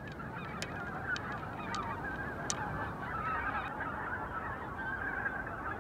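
A large flock of wild geese honking in flight, many calls overlapping into a continuous chorus.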